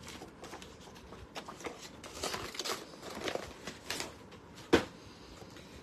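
Paper and packaging rustling and crinkling as items are handled and pulled out of a paper shopping bag, in small irregular bursts. One sharper tap comes about three-quarters of the way through.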